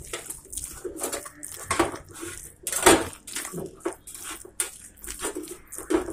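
A hand mixing thick ground toor dal vada batter in a stainless steel bowl, with irregular clinks and knocks against the metal, the loudest about three seconds in.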